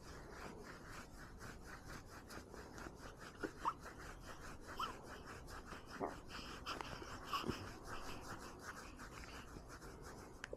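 Quick, even patting on a baby's back to bring up a burp, about four to five pats a second, with the baby's soft breathing and a few short high squeaks from the baby.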